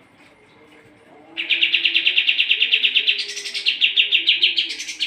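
Kapas tembak songbird singing a fast, continuous chattering trill of about ten notes a second. It starts about a second and a half in and climbs to a higher pitch in the middle and again just before it stops near the end.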